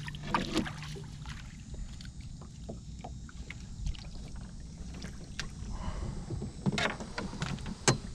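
A jack crevalle thrashing in a landing net as it is hauled out of the water into a small boat: scattered splashes, knocks and rattles against the hull. Two sharper knocks come near the end, the second the loudest, as the net comes down on the boat's floor.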